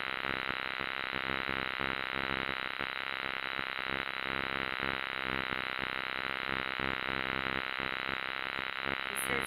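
A steady, buzzing chorus of calling animals, a dense trill that holds at one level throughout.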